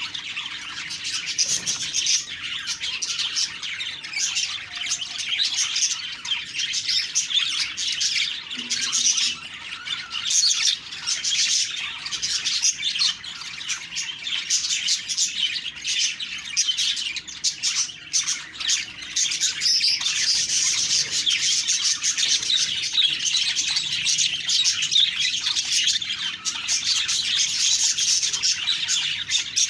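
Budgerigars chattering and warbling continuously, a dense run of fast chirps and squawks with no pauses.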